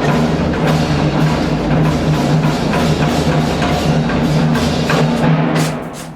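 Background music with steady percussion strikes over a sustained low tone, fading out near the end.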